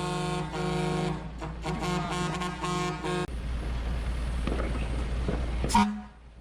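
Wolo 846 air horn sounding a rapid series of short, pitched blasts for about three seconds, then one more brief blast near the end. Between them there is a low rumble.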